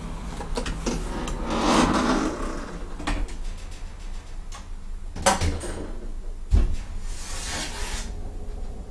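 Elevator doors sliding, with sharp clicks from the door mechanism and a single heavy thud about six and a half seconds in.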